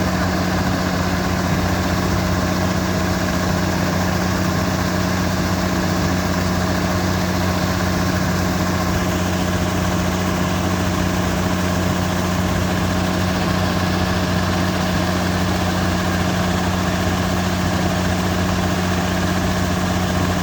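Combine harvester's diesel engine running steadily at a constant speed, a loud even drone with a deep hum.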